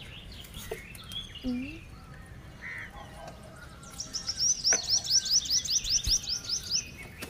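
A small bird calling: a fast string of short, high, falling notes, about five a second, starting about four seconds in and lasting nearly three seconds, with a few scattered chirps before it.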